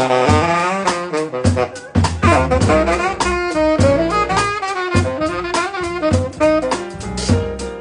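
Tenor saxophone improvising a fast-moving jazz solo, backed by a rhythm section of piano, double bass and drums.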